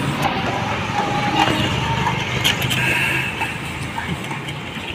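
Street traffic from a rickshaw ride: a car's engine running steadily close by, with scattered clicks and street noise around it.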